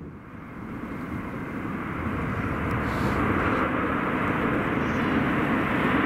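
Jet engines of an Airbus A321 rolling down the runway just after touchdown: a steady rushing engine noise that builds over the first two seconds, then holds.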